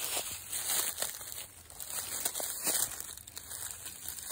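Dry leaf litter rustling and crackling as it is handled and stepped through, with scattered sharp crackles.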